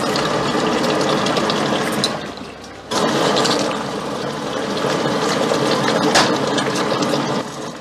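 Thick red curry gravy with salmon pieces boiling hard in a stainless steel pot: dense bubbling with small spitting crackles. It drops away briefly about two seconds in and picks back up about a second later.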